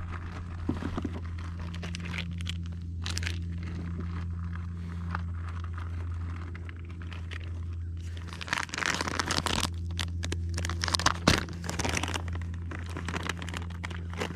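Close rustling, crinkling and small clicks of handling noise, busiest and loudest about eight to twelve seconds in, over a steady low hum.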